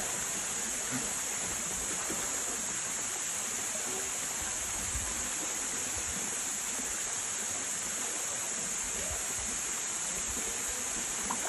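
Steady rushing of a small waterfall pouring down a rock face into a pool.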